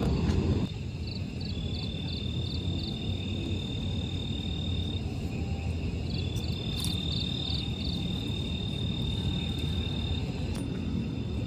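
An insect calling twice: each time a run of short, quick chirps runs into a long, steady, high-pitched trill, over a steady low rumble.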